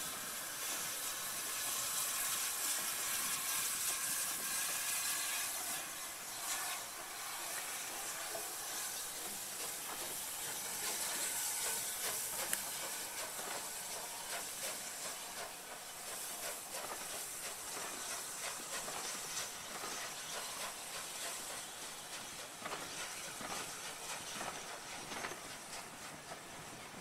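Steam locomotive 34027 Taw Valley, a rebuilt Bulleid West Country class Pacific, moving slowly with a steady hiss of escaping steam and no distinct exhaust beats. The hiss is loudest over the first few seconds and eases off later.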